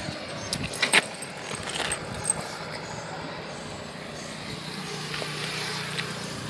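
A few light clicks and rattles of small hand-held gear being handled close by, then a steady low hum of a passing vehicle from about four seconds in.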